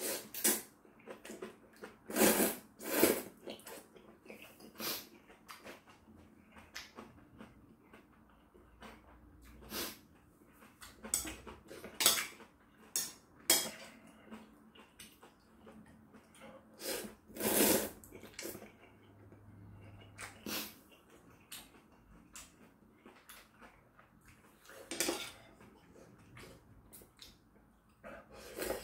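Mukbang eating sounds from a bowl of kalguksu noodle soup: noodles slurped in loud irregular bursts, with metal chopsticks clicking against the bowl in between.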